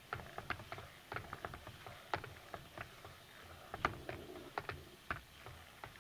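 Stick blender being worked through thin, still-liquid lard soap batter in a crock pot: irregular clicks and knocks, several a second, as the blender head taps against the crock, with light sloshing. The loudest knocks come about two seconds in and again just before four seconds.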